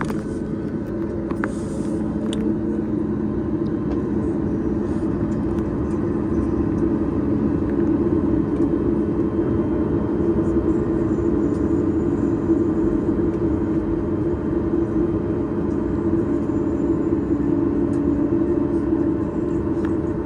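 Steady rumble and hum inside the cabin of a Boeing 737-8 MAX, from its CFM LEAP-1B engines and cabin airflow, holding level without rising.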